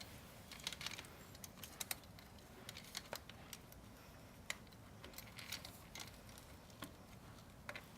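Faint, scattered metallic clicks and taps, about ten in all, as a bicycle's brake is reconnected after the wheel goes back in.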